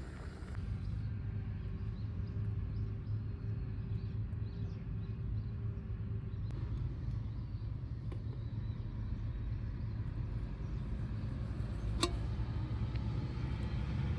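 Steady low rumble, with one sharp click about twelve seconds in.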